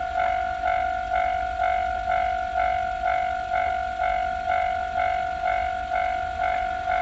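Japanese railway level crossing warning bell ringing steadily, about two dings a second, each ding a single bright tone that fades before the next.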